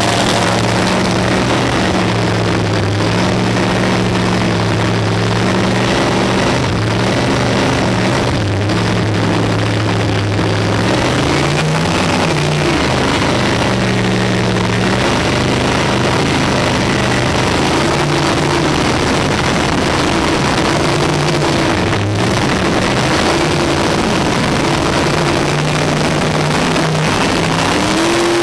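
Mandella long-deck boat's engine running under way, over a steady rush of wind and water. Its pitch rises and falls with the throttle about a third of the way in and climbs again near the end.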